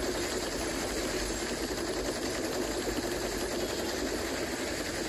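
Sustained rapid fire from a large rotary-barrel machine gun on a film soundtrack, recorded off a cinema screen: a steady, dense rattle.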